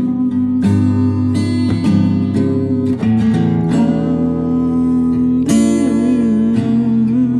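Instrumental acoustic guitar music, plucked and strummed chords with no vocals, a new ringing chord struck about five and a half seconds in.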